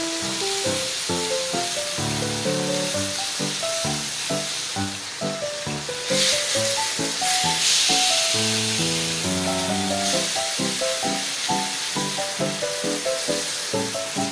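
Bone-in pork chop sizzling on a hot griddle plate as its fat edge is rendered, the sizzle growing louder for a couple of seconds from about six seconds in. Background music with a quick melody of single notes plays throughout.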